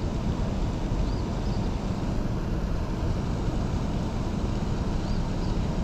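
Steady low rushing of water pouring through a dam's tailwater, even and unbroken, with faint bird chirps about a second in and again near the end.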